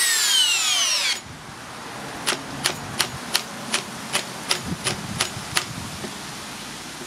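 Makita XGT 40V cordless drill driving a long stainless batten screw in drill mode. Its motor whine falls in pitch as it slows under the load, then cuts off suddenly about a second in as the screw bottoms out. A run of about a dozen sharp clicks follows, evenly spaced at roughly three a second.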